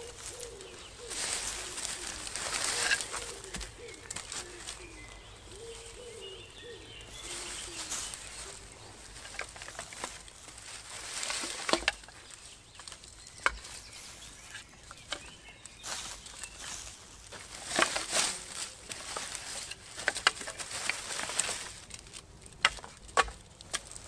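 A pigeon cooing in low, wavering notes for the first several seconds, among bursts of rustling and a scattering of sharp clicks later on.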